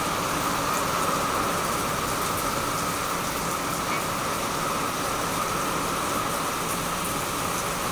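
Steady rain falling on leaves and potted plants: a constant hiss with faint scattered drop ticks.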